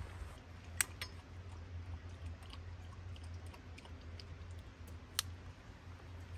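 Small snaps and ticks of dry twigs being handled in a stainless steel fire pit, with two sharp clicks: one under a second in, and one about five seconds in, as a long-neck lighter sparks and catches the kindling. A steady low hum runs underneath.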